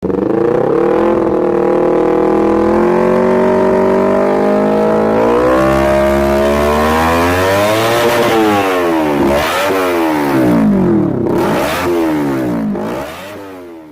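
Motorcycle engine revving: a held, fairly steady note for several seconds, then a series of quick rises and falls in pitch, fading out near the end.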